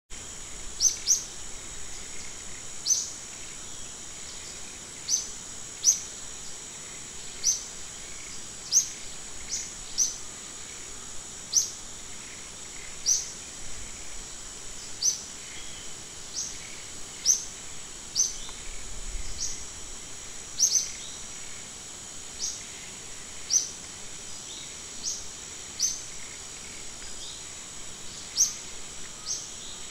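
Outdoor ambience of a steady high insect drone, with a bird repeating a short rising chirp about once a second.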